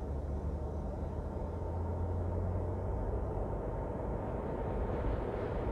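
Steady road noise of a car driving: tyre and engine rumble, with a deep low rumble that eases about halfway through.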